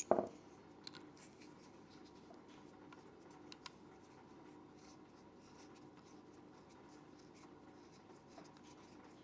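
Hands handling small plastic action-camera mount parts, with a sharp knock at the start, then a few small clicks and light rubbing, over a faint steady room hum.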